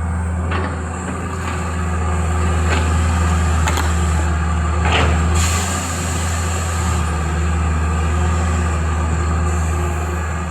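Excavator's diesel engine running steadily, with a few sharp knocks and a brief hiss about five seconds in.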